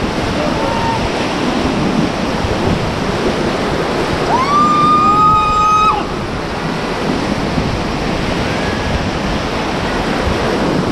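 Whitewater rapids rushing steadily around an inflatable raft. About four seconds in, someone gives a single drawn-out high-pitched yell lasting about a second and a half.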